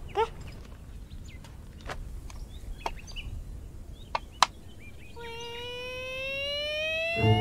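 Birds chirping in short, scattered calls. From about five seconds in, a drawn-out musical note rises slowly in pitch, and a thump near the end brings in more soundtrack music.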